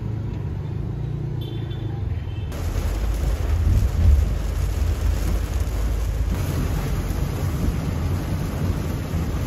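Heavy rain beating on a moving car, over the car's low, steady road rumble. For the first two and a half seconds only a low rumble is heard, then the rain noise comes in and stays.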